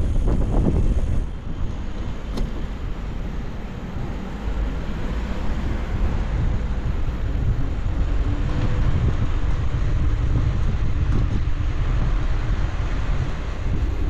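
Wind rumbling on the microphone of a moving electric bicycle: a steady low noise that dips slightly for a couple of seconds about a second in.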